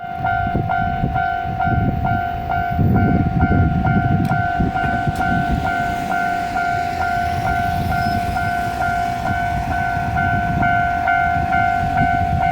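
Level-crossing alarm ringing in an even, repeated strike about twice a second over a continuous tone. Beneath it runs the low rumble of a diesel railcar on the line, heaviest about three seconds in.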